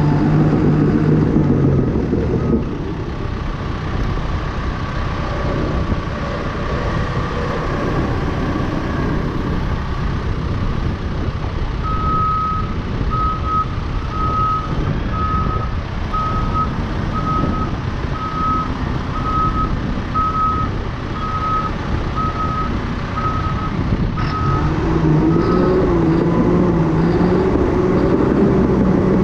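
A 2019 Cat D5K dozer's diesel engine runs steadily, working harder near the start and again near the end with a lower drone in between. Through the middle a backup alarm beeps about once a second for some twelve seconds.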